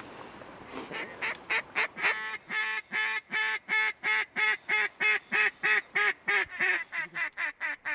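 Duck call blown by a hunter in a long, rhythmic series of quacks, about four a second, starting about a second in and cutting off at the end: a calling sequence aimed at passing ducks.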